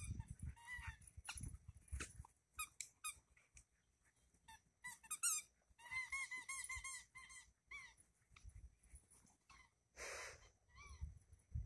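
Faint squeaks from a squeaky dog toy during play, with a quick run of about seven squeaks in a row around the middle.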